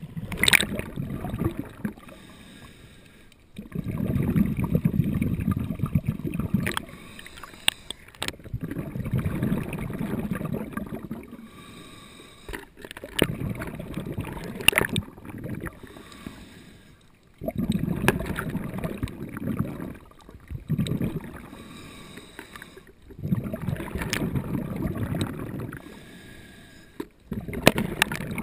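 Scuba diver breathing through a regulator underwater: a rush of exhaled bubbles every four to five seconds, about six times, with quieter inhales and a few clicks in between.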